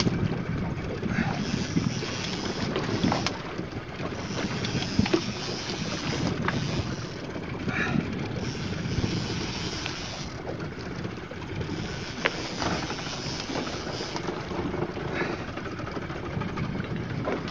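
Wind buffeting the microphone over sea wash around a small open fishing boat, with a few sharp clicks and knocks.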